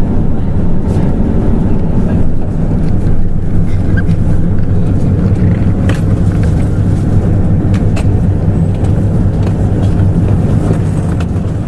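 Hino Blue Ribbon City hybrid city bus running steadily: a low engine drone with occasional small clicks and rattles.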